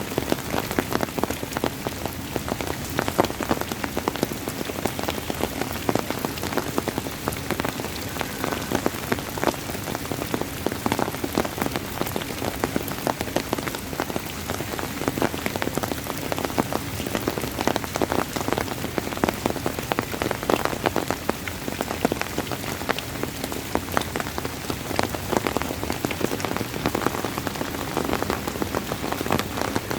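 Steady rain falling on a surface, a dense, continuous stream of individual drop hits at an even level.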